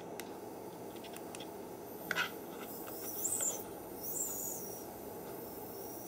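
Hands handling a small plastic tub of water holding ultrasonic mist-maker discs: a few small clicks, a sharper knock just after two seconds, then two short hisses about three and four seconds in.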